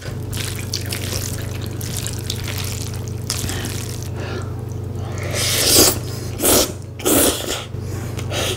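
Close-mic eating sounds: glass noodles and rice in a spicy sauce being stirred with a wooden spoon, a wet squelching scrape, then three loud slurps of noodles in the second half.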